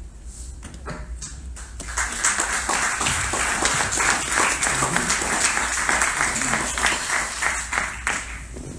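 Audience applauding: a few scattered claps at first, swelling into steady applause about two seconds in, then dying away near the end.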